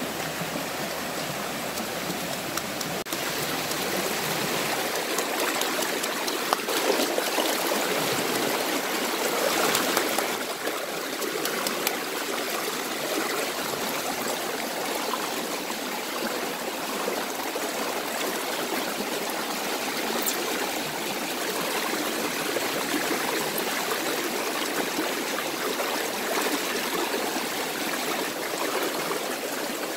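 Stream water running steadily over rocks.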